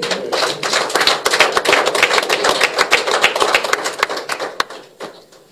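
A small crowd applauding: many hands clapping at once. The clapping thickens within the first second, holds steady, then thins out and stops about five seconds in.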